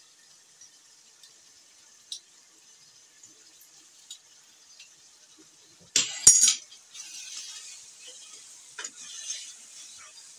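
A few faint clicks as a metal hand-press lemon squeezer is worked over the wok, then a loud clatter of utensils against the pan about six seconds in. After that, a slotted spatula scrapes and stirs dry-fried beef mince in a non-stick wok with a light sizzle.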